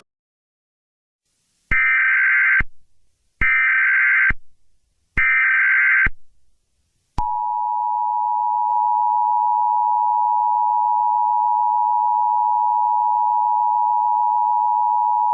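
Emergency Alert System alert tones: about two seconds in, three short bursts of warbling data tones come a little under a second apart, each about a second long. After them the steady two-tone attention signal sounds for about eight seconds.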